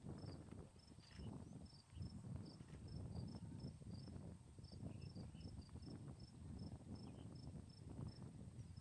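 Faint insect chirping in a regular pulse of about three to four short high chirps a second, with a steady high whine above it, over an irregular low rustling rumble.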